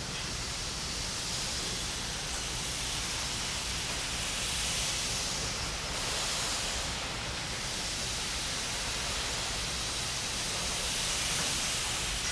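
A steady rushing noise with no musical notes, swelling gently a few times: a sound effect mixed in between passages of a wind band piece.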